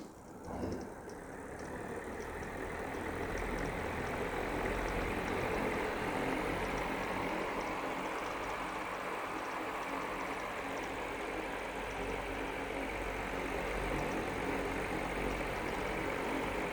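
Small electric fan switched on with a click, its motor and blades spinning up over the first few seconds, then running steadily with a low hum and a faint regular ticking.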